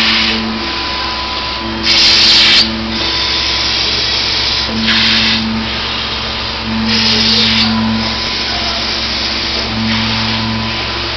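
Shin Chyi DSL-CA pre-coated film laminating machine running: a steady mechanical hum with a hissing surge that comes back about every two and a half seconds as the machine cycles.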